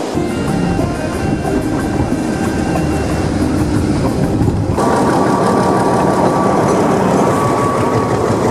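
Passenger train running on the rails, heard from close by, with steady rail noise. About five seconds in the sound gets louder and a steady high-pitched squeal, typical of wheels on the rail, comes in over it.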